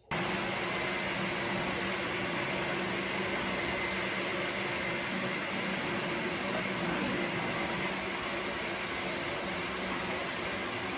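Vacuum cleaner motor coming on suddenly and running steadily: a constant rushing air noise with a steady hum and a faint high whine.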